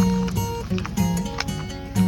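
Background music: a plucked, guitar-like melody with a steady beat.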